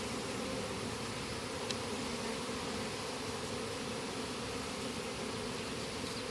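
Honey bees buzzing steadily in a dense swarm around an opened hive, a continuous hum.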